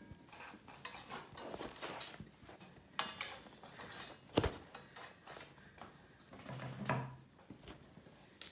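Cardboard box rustling, scraping and knocking as a cat inside it and a puppy paw and bat at it, with one sharper thump about four and a half seconds in.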